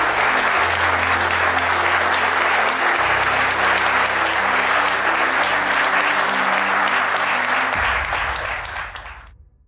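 Audience applauding, a dense crowd of clapping hands that fades away near the end.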